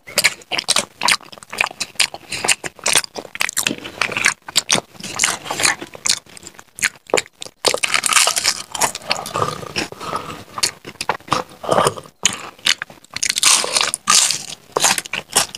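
Crunching and chewing of crisp papad: a dense run of crackling bites with a couple of brief pauses.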